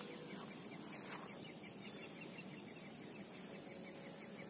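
Insects, crickets or cicadas, droning steadily at a high pitch, joined about a second and a half in by a quick, even run of short chirps, about five a second.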